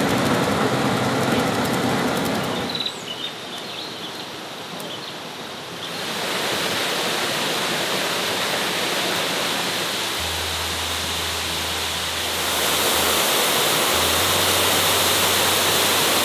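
An open off-road jeep's engine running for the first few seconds. Then, after a quieter moment, the steady rush of a waterfall, growing louder about twelve seconds in.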